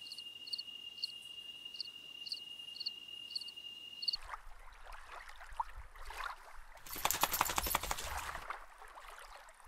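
Insect chorus, cricket-like: a steady high trill with short chirps about twice a second, which cuts off abruptly about four seconds in. A different ambience follows, with scattered sounds and a dense rapid rattle lasting about a second and a half near the end.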